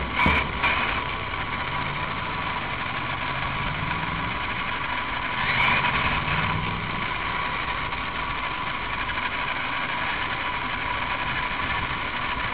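Steady vehicle engine and street-traffic noise with a constant whine, swelling briefly about six seconds in.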